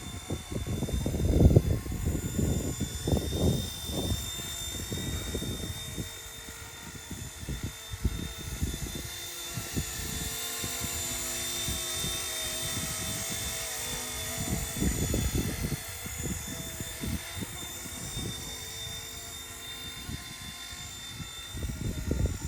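RC Era C189 MD500 model helicopter's electric motor and rotors whining steadily in flight. Gusts of wind buffet the microphone, heaviest about a second in and again near the middle.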